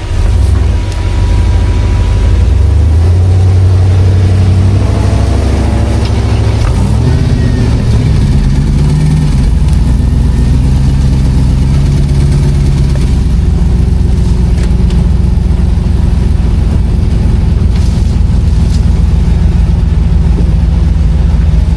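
Off-road vehicle's engine running at low revs, its pitch shifting up and down a few seconds in, then holding steady.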